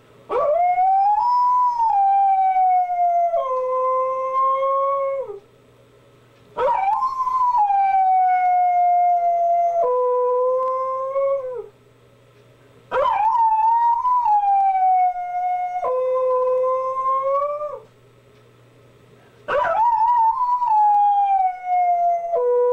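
A Siberian husky-type dog howling four times, about six seconds apart: each howl jumps up fast, sags slowly, then drops a step lower and holds before trailing off. The last howl is still going at the end. It is a lone dog howling for its absent family.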